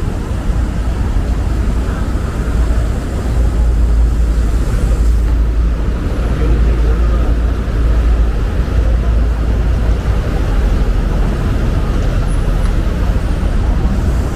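Steady road traffic noise of cars going by on a busy city street, a continuous low rumble.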